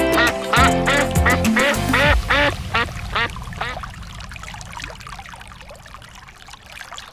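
An animal giving a rapid run of short rising-and-falling calls, about three a second, that grow fainter, over background music that stops about two seconds in.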